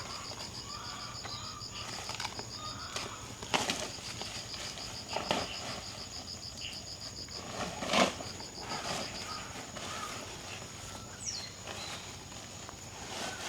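Insects trilling in fast pulsed runs over a steady high-pitched hum, with a few sharp knocks and rustles. The loudest knock comes about eight seconds in.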